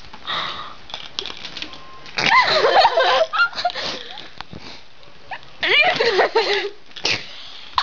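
A person's wordless vocal sounds: two bursts of about a second each, the first a little over two seconds in and the second near the end, both wavering up and down in pitch, with a few short clicks between.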